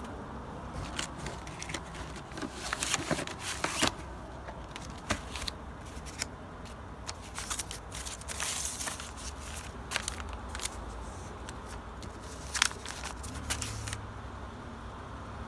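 Old newsprint rustling and crinkling in irregular bursts as homemade newspaper sleeves around 45 rpm singles are handled, over a steady low hum.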